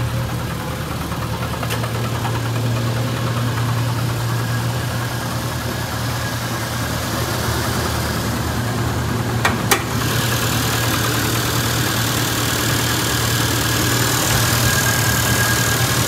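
Tracker's four-cylinder engine idling steadily just after a cold start, following about three weeks of sitting; the owner says it needs new motor mounts. A sharp click about ten seconds in as the hood is opened, after which the engine is heard more clearly.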